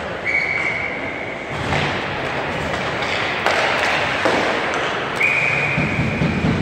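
Referee's whistle blown twice, each a steady high blast of a little over a second, one near the start and one near the end. Between them come a few sharp knocks and thuds of sticks, puck and boards.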